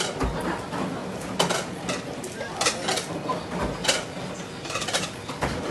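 Restaurant kitchen clatter: metal ladles and bowls clanking against steel stockpots and dishes, several sharp clanks a second or so apart, over a background of voices.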